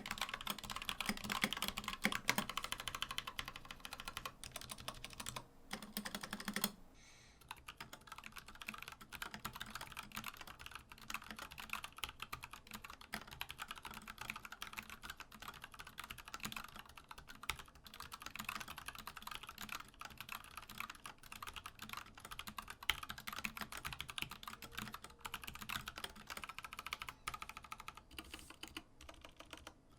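Continuous fast typing on a mechanical keyboard, a dense patter of switch clicks. About seven seconds in the typing breaks off briefly and resumes with a lighter sound that has less low thock, as from a different switch.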